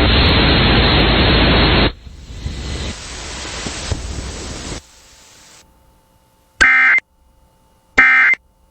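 A loud steady hiss of static cuts off about two seconds in and gives way to a quieter hiss that fades out. Then come two short, shrill bursts of EAS digital data tones, the end-of-message code that closes an emergency alert, each under half a second long and about a second and a half apart.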